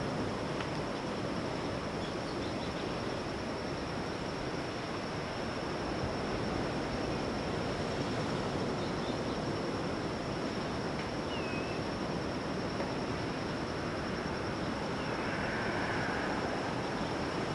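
Ocean surf washing steadily on a beach, with a few faint, short bird chirps scattered through it and a thin, steady high tone throughout.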